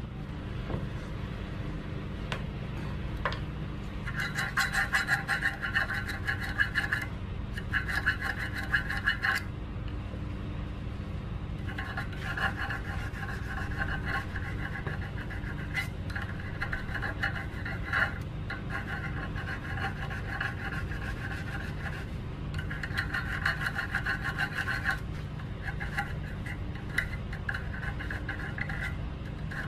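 Thin flat file rasping back and forth on the barbs of a stainless steel fish-slingshot arrow point clamped in a vise, smoothing the barb edges. The filing comes in several runs of rapid strokes with short pauses between them.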